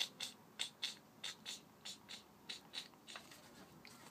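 Faint, light clicks of small plastic figure parts being handled, a few a second and irregularly spaced, thinning out after about three seconds.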